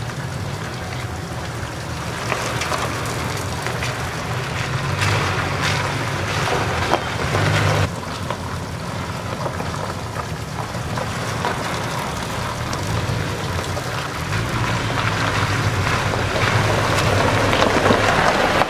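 Toyota Tacoma pickups crawling slowly on a wet gravel trail: a steady low engine hum under the hiss and crackle of tyres rolling over wet gravel.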